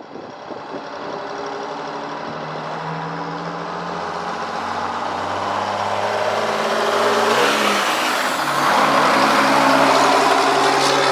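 1963 GMC Crackerbox cabover's turbocharged Detroit Diesel 6-71, a two-stroke inline-six, running under load as the truck drives up and passes close, growing louder. The revs drop at a gear change about seven and a half seconds in and then climb again.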